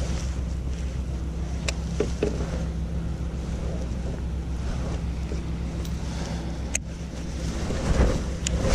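Steady wind rumble on the microphone, with a few sharp handling clicks and rustling of a nylon rain jacket as a lure and a baitcasting reel are handled. The rustling is loudest near the end.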